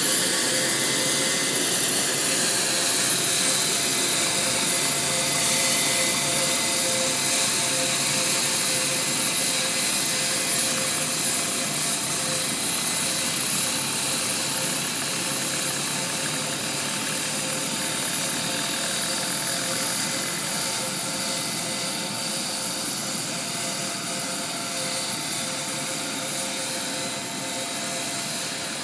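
Boeing 727-59 cargo jet's turbines giving off a steady high-pitched whine over a loud hiss while the aircraft is pushed back. It fades slowly toward the end.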